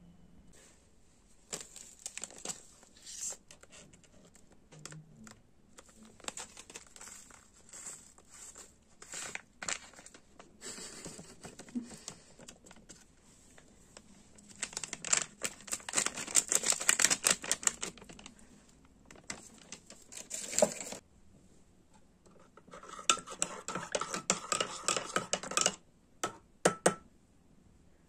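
Handling and crinkling of a paper-and-foil instant soup sachet as it is torn and tipped into a ceramic mug, with scattered light rustling and clicks. The densest crinkling comes about halfway through, and another stretch of rustling with light clinks follows near the end.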